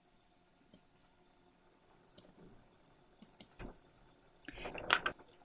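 Faint, scattered sharp clicks and taps from small items being handled, then a short patch of handling noise near the end.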